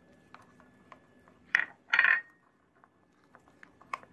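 A spoon clinking against crockery as flour is added and batter mixed. There are two clear clinks about half a second apart, the second ringing briefly, among faint small taps and scrapes.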